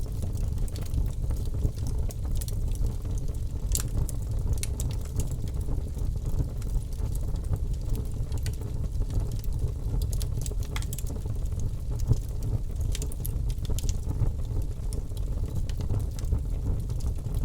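Birch logs burning in a fireplace, crackling with scattered sharp pops over a steady low rumble of the fire.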